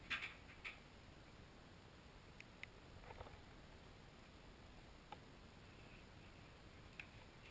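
A Shetland sheepdog and a Rhodesian ridgeback play-wrestling on carpet, heard as a handful of faint clicks and soft bumps over quiet room tone, the loudest two right at the start.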